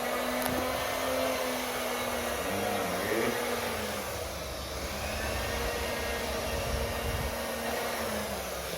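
Electric fan running: a steady rush of air with a motor hum whose pitch wavers and dips twice.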